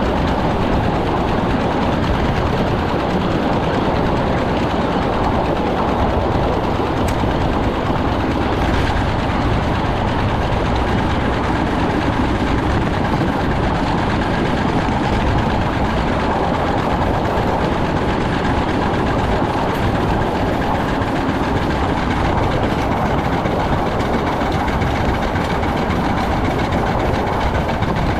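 2-6-0 steam locomotive working upgrade, heard from the fireman's side of the cab: a loud, steady, unbroken running noise of the engine and its wheels on the rails.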